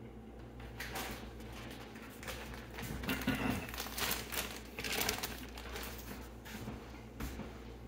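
Plastic bag of shredded cheese crinkling as it is handled, in an irregular run of rustles and crackles.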